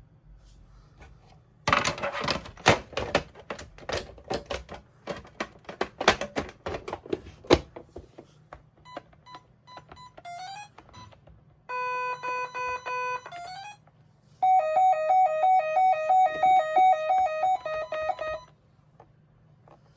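A run of sharp clicks, then the Gardtec 591 intruder alarm system's sounder: a few short beeps and rising chirps, a steady beep of about a second and a half, and a loud two-tone warble alternating between two pitches for about four seconds before cutting off.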